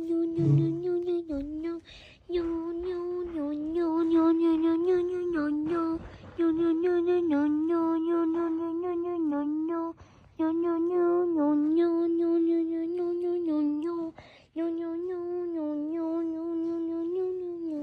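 A voice-like hum held on one nasal note, repeated in stretches of three to four seconds with short breaks between them, the pitch wobbling slightly.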